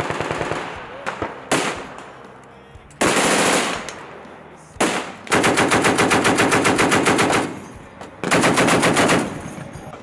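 Bursts of automatic fire from an M2 .50-calibre heavy machine gun. The longest burst, about two seconds from the middle of the stretch, runs at roughly eight shots a second. Shorter bursts come at the start, about three seconds in and near the end, with single shots in between.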